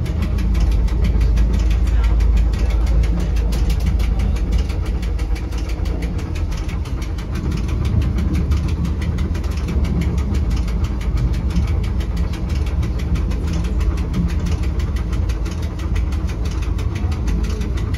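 Rigi rack railway train running, heard from inside the driver's cab: a steady low motor and running-gear rumble with a fast, even clatter on top.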